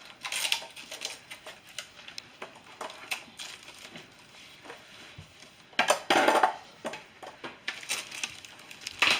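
Scattered rustling and light clattering of pet supplies being unpacked and handled, with a louder rustle about six seconds in and another near the end.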